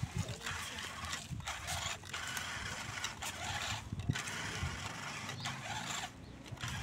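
Small electric RC rock crawler's motor and gears running as it strains to tow a loaded trailer, tyres crunching over loose gravel, cutting out briefly several times as it moves in short spurts.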